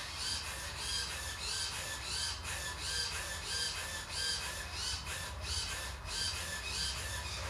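Radio-control servos on a model autogyro's rotor head whining in short, evenly repeated strokes, about two a second, each rising briefly in pitch and then holding, as the head is tilted back and forth from the transmitter sticks.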